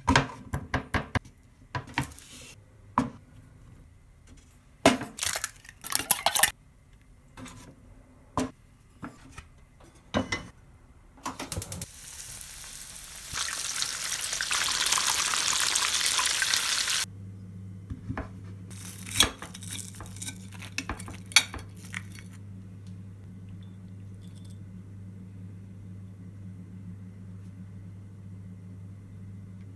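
Kitchen cooking sounds: utensils and dishes clinking and knocking for the first ten seconds or so, then several seconds of loud hiss like food frying, which cuts off suddenly. A steady low hum with a few light clicks follows to the end.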